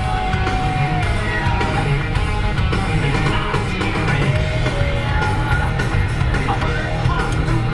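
Loud hard rock music with singing and heavy bass, playing on a car stereo.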